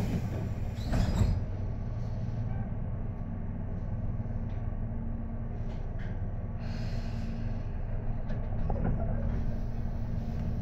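Tobu 10030 series electric commuter train heard from inside the car while running: a steady low rumble of motors and wheels on the rails, with scattered short clicks from the track.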